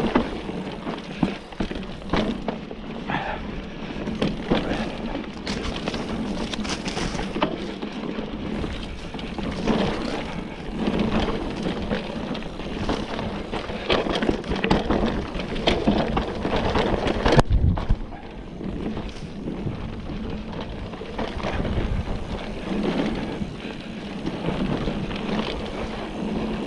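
Orbea Laufey hardtail mountain bike ridden fast down dry dirt singletrack: tyres rolling over the trail and the bike rattling and knocking over bumps, with a harder knock about two-thirds of the way through. Wind buffets the microphone throughout.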